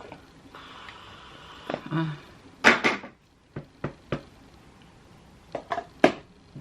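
A few sharp clicks and knocks of small objects being handled and set down, the loudest about two and a half seconds in, after a faint hiss in the first couple of seconds.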